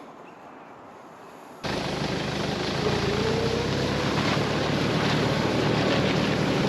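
A vehicle engine running steadily with wind noise on the microphone, starting suddenly about a second and a half in after a quiet outdoor stretch.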